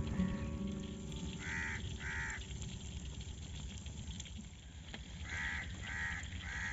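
Crow cawing: two caws about one and a half seconds in, then four more in quick succession near the end.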